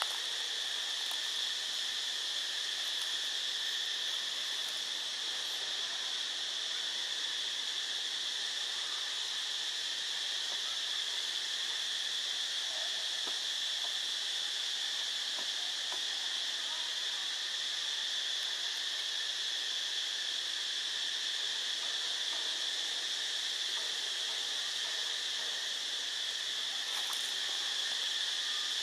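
Steady chorus of insects in the trees, a continuous even buzzing drone with no breaks.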